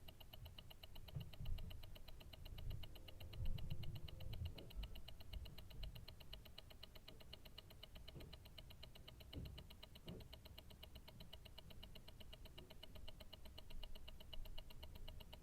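Invicta Grand Octane tourbillon watch movement ticking, picked up through a stethoscope: a rapid, perfectly even beat of the escapement. Irregular low thumps sit beneath the ticking now and then.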